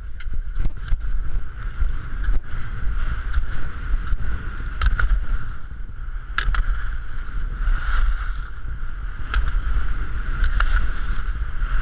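Wind rumbling on a helmet-mounted action camera's microphone while skiing a slalom course, with the steady scrape of skis on packed snow. Several sharp clacks, some in quick pairs, as slalom gate poles are struck.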